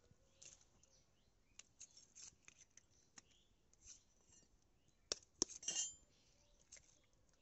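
Raw eggs being cracked open by hand over a small steel bowl: faint clicks and shell crackle, then a short burst of sharp cracks and crackling a little past halfway as the second egg's shell breaks.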